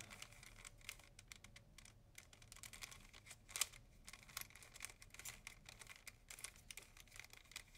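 Rubik's cube faces being twisted by hand: faint, irregular clicks and rattles of the plastic pieces, with one louder click about three and a half seconds in.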